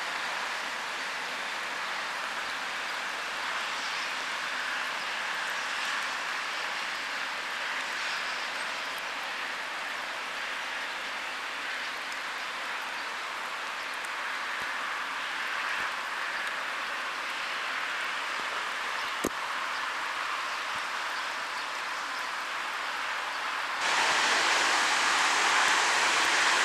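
Freight train of tank wagons and boxcars rolling slowly past, a steady rushing noise with no clear wheel rhythm. There is a single sharp click about 19 seconds in, and the noise steps up louder near the end.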